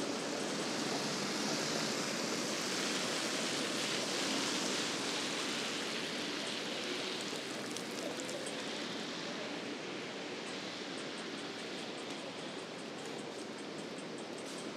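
Steady hiss of traffic on a rain-wet city street, with no single vehicle standing out. Faint, evenly spaced high ticks come through in the last few seconds.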